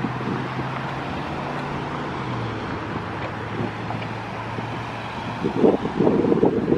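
Steady low engine hum of road vehicles, with traffic noise around it; the hum drops a little in pitch about two seconds in. Wind buffets the microphone from near the end.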